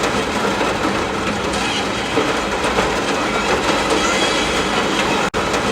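Steady heavy rain, an even rushing hiss, with a split-second gap about five seconds in.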